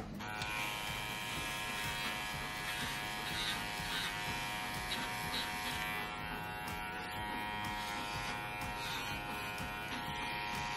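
PettingPal electric pet clippers switched on at the very start and buzzing steadily as they trim the hair from between a dog's paw pads.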